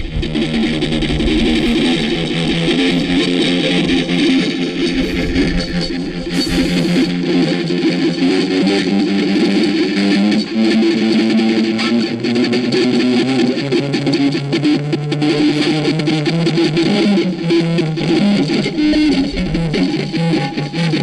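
Music led by electric guitar, playing steadily throughout.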